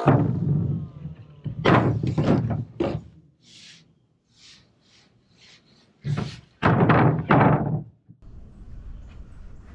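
A run of heavy thunks and knocks in two clusters, one starting at once and lasting about three seconds, the other about six seconds in; then a steady low rumble takes over near the end.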